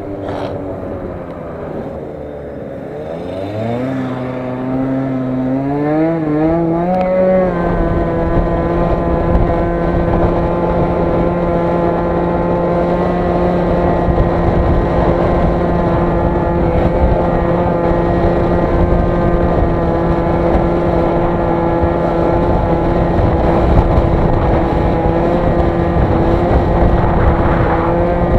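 Aprilia SR50R scooter's 50 cc two-stroke single-cylinder engine under way. Its note drops in the first couple of seconds, then climbs in wavering steps for a few seconds as the scooter is opened up. From about eight seconds in it holds one steady high note at full throttle near top speed.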